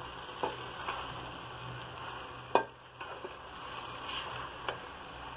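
A metal spoon stirring and tossing boiled fusilli with sauces in a metal pot, clinking against the pot a few times, the sharpest knock about two and a half seconds in, over a steady low sizzle.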